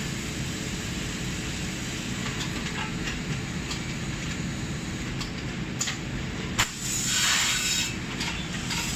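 Steady machine hum from a coffee bag-packing machine, with scattered light clicks. About six and a half seconds in, a sharp clack is followed by a hiss of air lasting about a second as its pneumatic actuators fire and vent.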